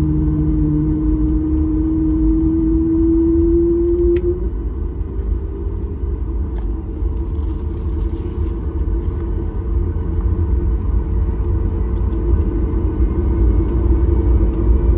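Boeing 737 MAX 8's CFM LEAP-1B jet engines heard from on board: a steady low rumble, with a whine that rises slowly in pitch over the first few seconds and then fades into the rumble.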